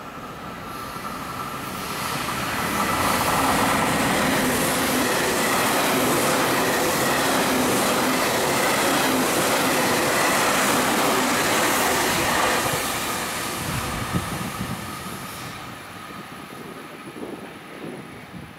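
A JR Central 383 series limited express electric train runs through a station without stopping. The rush of wheels on rail and running gear swells over the first few seconds, stays loud for about ten seconds as the cars go by, then fades away.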